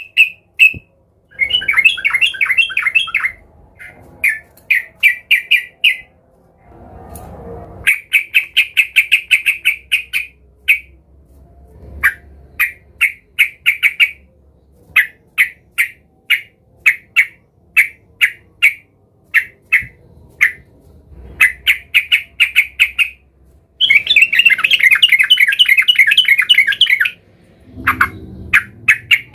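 Yellow-vented bulbul (trucukan) calling excitedly: runs of short, quickly repeated bubbly notes, broken by two longer bursts of dense chattering, one near the start and one past the middle. It is the agitated 'gacor' calling of a bird looking for a rival.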